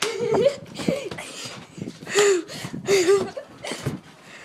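Children's voices making short wordless vocal sounds, three brief voiced cries spread across a few seconds.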